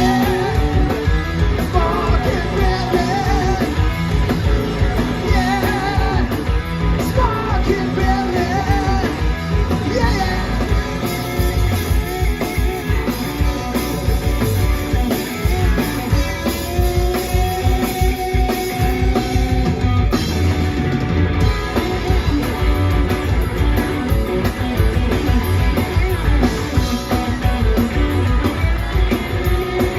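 Rock music: a band with electric guitar and drums, and a singing voice over it.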